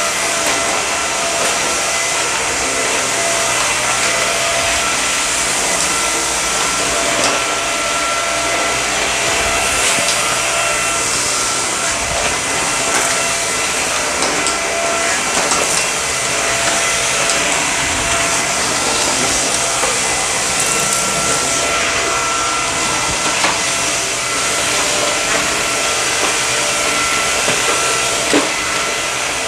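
Samsung Jet VS70 cordless stick vacuum running with its brush-roll cleaner head: steady airflow rush with a constant high motor whine, and a couple of sharp clicks near the end.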